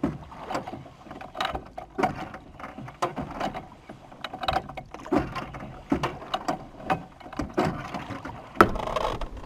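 Oars of a small hand-rowed boat knocking and clattering in their oarlocks with each stroke, roughly once a second, along with water splashing off the blades.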